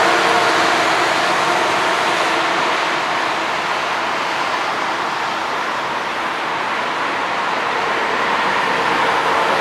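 Airbus A320 jet engines running at low power as the airliner taxis, a steady distant rushing noise with a faint hum that fades in the first couple of seconds. The noise dips slightly in the middle and grows again near the end.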